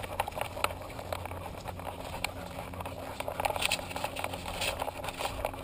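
Camera strapped to a walking dog's harness, picking up irregular ticks, scuffs and rattles as the harness jostles and the dog's paws scrape the dusty dirt trail.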